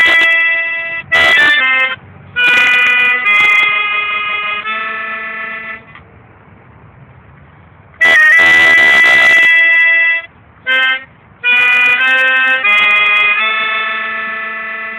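A reedy wind instrument playing loud, held chords in short phrases, with a pause of about two seconds between two groups of phrases.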